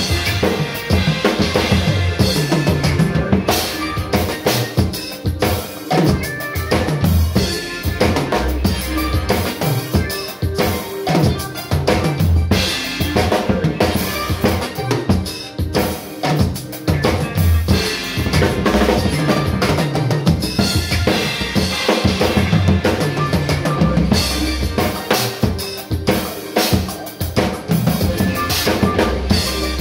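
Acoustic drum kit played continuously, kick drum, snare and cymbals in a steady groove.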